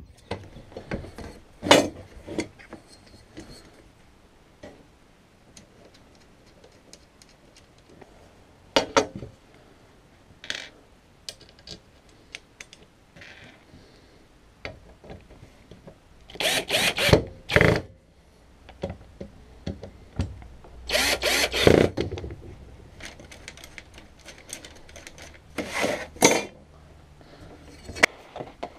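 Cordless drill running in several short bursts, mostly in the second half, amid scattered clicks and knocks of metal parts being handled.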